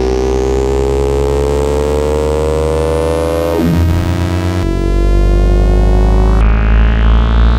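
Synthesized motorcycle engine sound from a KORG iMS-20, its pitch climbing steadily like an engine revving, then dropping about three and a half seconds in as if shifting gear. The tone changes abruptly twice more, and a new rising glide starts near the end.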